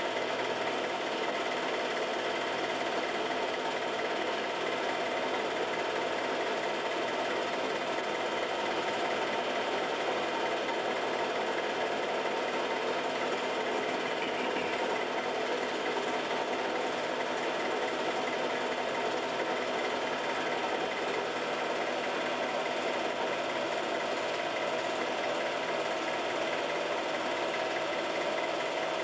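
Film projector running: a steady whirr and fast mechanical clatter from its motor and film-advance mechanism, unchanging throughout.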